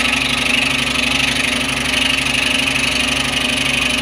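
Scroll saw running steadily, its reciprocating blade cutting into a wooden board to take out the waste wedge beside a dovetail pin.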